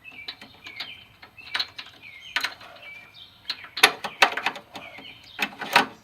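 Socket ratchet clicking in short strokes while a spark plug is worked in, the clicks coming in denser, louder runs in the second half. Small birds chirp faintly in the background.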